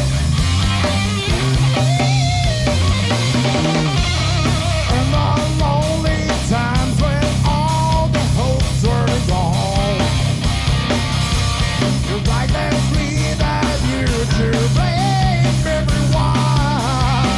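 Live rock band playing loud: electric guitar, bass guitar and drum kit, with a male singer's vocals over them from about two seconds in.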